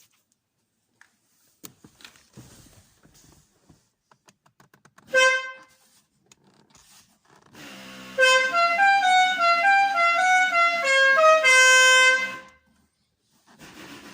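Multi-trumpet musical air horn ("baba korna") sounding: one short blast about five seconds in, then a tune of quick stepping notes for about five seconds, with the tune starting again right at the end.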